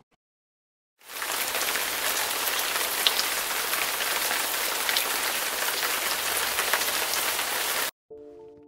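Steady rain falling on a tent, a dense hiss flecked with individual drop hits. It starts abruptly about a second in and cuts off just before the end.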